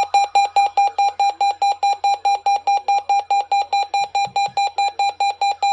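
Weather radio receiver's alert alarm: a loud, high-pitched electronic beep pulsing about five times a second at a steady pitch. It is the receiver activated by a NOAA Weather Radio required weekly test signal.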